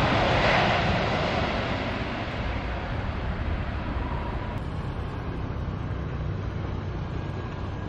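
Boeing 737 jet engines at takeoff power, the roar fading as the airliner rolls away down the runway. Near the end a faint whine of another jet airliner on approach rises slightly in pitch.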